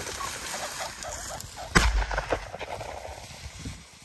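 A pheasant flushing from dry reeds with short cackling calls, then a single loud shotgun shot a little under two seconds in, over the rustle of a dog moving through the reeds.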